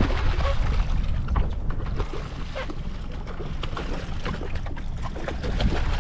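Boat running underway: a steady low rumble with wind buffeting the microphone, and many short splashes and slaps of water.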